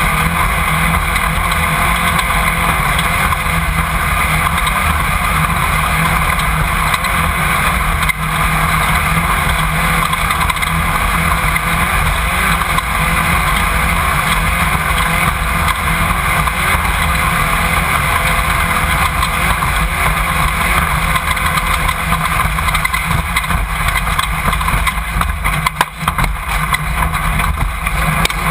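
Off-road race car driven at speed, engine running hard and steady, picked up by an on-board camera inside the car. About 26 seconds in there is a short jolt where the sound drops and clatters.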